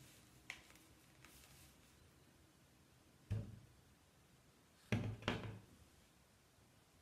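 Dull knocks of a newspaper-wrapped PVC pipe being set down and bumped against a tabletop: one about three seconds in, then two louder ones close together about five seconds in, with a faint click near the start.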